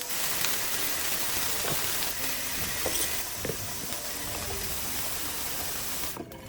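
Water spraying from a high-pressure shower head: a steady, loud hiss that stops suddenly near the end.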